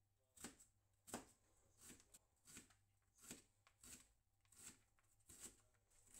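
Chef's knife chopping onion on a plastic cutting board: a steady series of short knocks of the blade on the board, about eight strokes, one roughly every three-quarters of a second.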